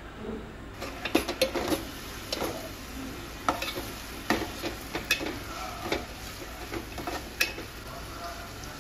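A metal spoon stirring chopped onion, tomato and green chilli through hot oil in a metal pot, with irregular clinks and scrapes against the pot over a light sizzle. The clinking starts about a second in.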